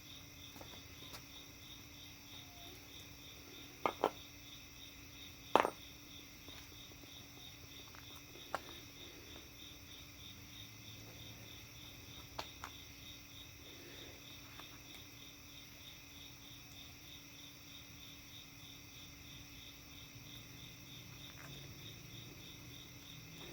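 Crickets chirping steadily in fast, even pulses, with a few short sharp clicks about four and six seconds in.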